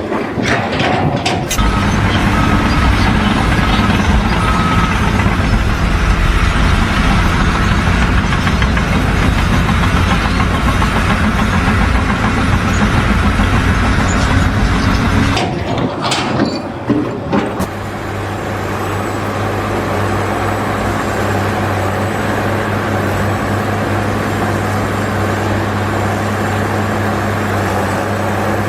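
Heavy machine or truck engine running steadily. It breaks off and changes about sixteen seconds in, and a different engine hum carries on from there.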